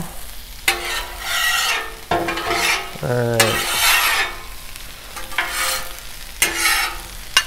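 Metal griddle spatulas scraping across the steel cooktop of a Blackstone griddle in several separate strokes, pushing broccoli and onions together, with the food sizzling on the hot plate.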